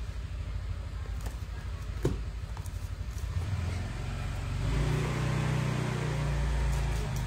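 A motor vehicle's engine rumbling, growing louder about halfway through and holding there. A few light taps of small cardboard boxes being set down on a glass counter, the sharpest about two seconds in.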